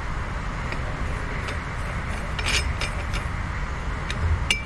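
A few light metallic clicks and clinks as the brass packing adjusting ring and its spring-loaded locking pin are handled inside a Hale pump's bearing housing, over a steady low background rumble.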